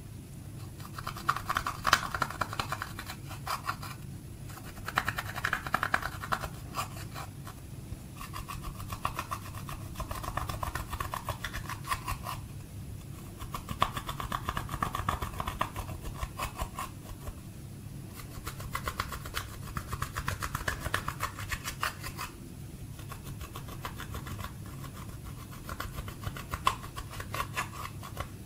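A small pointed tool scraping and crushing pressed eyeshadow in its palette pans: dry, gritty scratching and crumbling in stretches of a few seconds with short pauses between. A faint steady low hum runs underneath.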